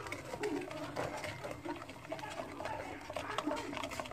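Wooden spoon stirring and scraping against a stainless steel wok, with repeated small clicks and scrapes. Short pitched calls sound in the background throughout.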